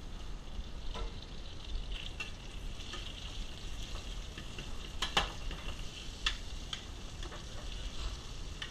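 Food sizzling steadily in a hot pan, with a few sharp taps and clicks of a utensil against the pan; the loudest taps come about five seconds in.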